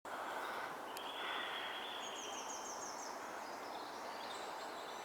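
Rural outdoor background: a steady hiss of ambient noise with faint birdsong, including a short run of quick repeated notes about two seconds in.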